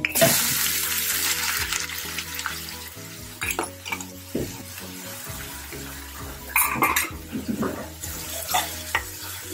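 Chopped onions tipped into hot oil in a steel pan. They set off a loud sizzle right at the start that dies down over a few seconds into a steady fry. A slotted metal spoon then clinks and scrapes against the pan a few times as the onions are stirred.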